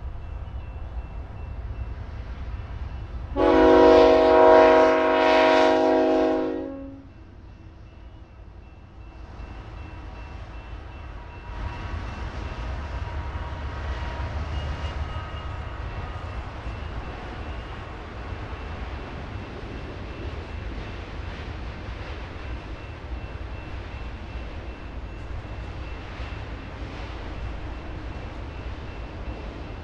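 Diesel freight locomotive's air horn sounding one long blast of several notes together, about three and a half seconds long, a few seconds in. Under and after it, the steady low rumble of a freight train rolling past.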